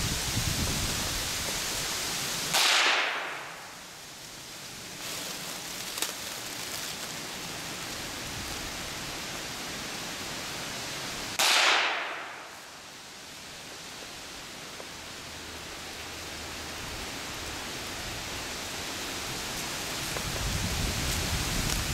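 Two gunshots from a hunting gun, about nine seconds apart, each a sudden loud crack over a steady noisy background.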